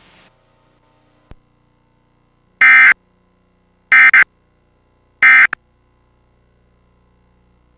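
Emergency Alert System end-of-message data tones: three short, loud buzzy bursts of SAME digital code about 1.3 seconds apart, the signal that the severe thunderstorm warning has ended.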